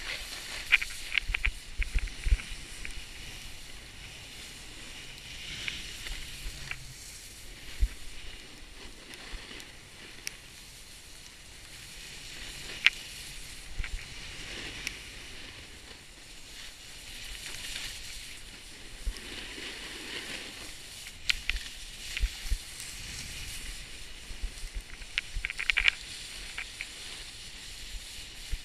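Snowboard sliding down a snowy slope: the board's edge hisses and scrapes on the snow, swelling and fading with each turn. Wind rumbles on the microphone, and a few sharp knocks come through.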